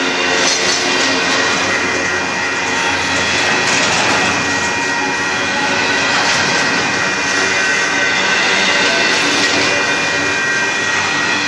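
Double-stack container cars of a freight train rolling past at steady speed, a continuous rumble and clatter of steel wheels on rail, with a steady high-pitched tone running through it.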